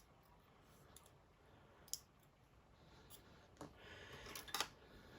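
Small metal parts of an Assa Desmo lock cylinder clicking as its sidebars are popped out during disassembly. There is a single sharp click about two seconds in, then a short cluster of clicks near the end, the last of them the loudest.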